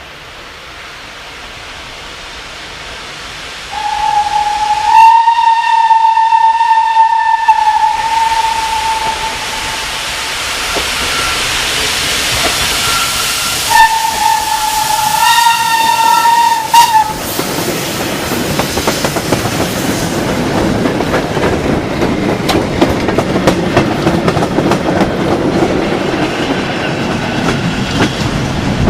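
A steam locomotive hauling a freight train approaches and sounds its steam whistle in two long blasts, the first about four seconds in and the second about ten seconds later. The train then passes, its wagons rumbling and clattering over the rail joints.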